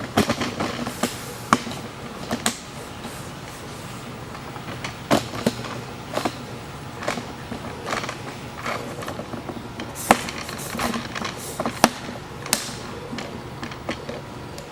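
Irregular metal clinks and knocks of hand tools and parts being handled while a motorcycle chassis is stripped, over a faint steady hum.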